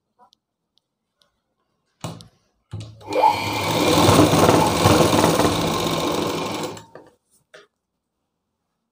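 Sewing machine stitching strips of cloth together: a couple of short starts about two seconds in, then a steady run of about four seconds that stops shortly before the end.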